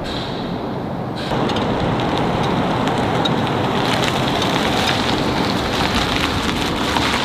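Wind rushing and buffeting, with a red flag flapping on its pole; from about a second in, a louder steady rushing noise as a pickup truck towing a dog trailer drives past.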